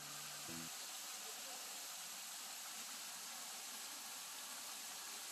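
Steady, even hiss of noise, with the last notes of background music dying away about half a second in.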